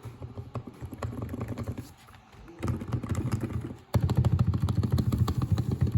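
Lubed Razer Huntsman Mini keyboard with red linear optical switches, typed very fast in a dense continuous clatter of keystrokes. It eases off briefly about two seconds in, then picks up again and gets louder and denser from about four seconds in.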